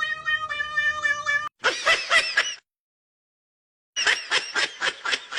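A cat yowling: a long steady pitched note, then quick strings of short harsh cries, about six a second, broken by more than a second of silence.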